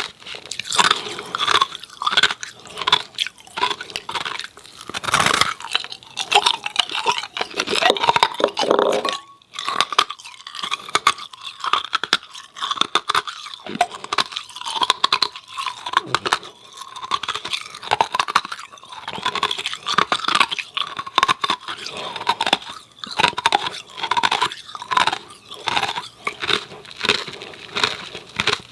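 Close-miked crunching and chewing of hard frozen ice cubes: a fast, irregular run of sharp cracks and crackles as the ice is bitten and ground between the teeth.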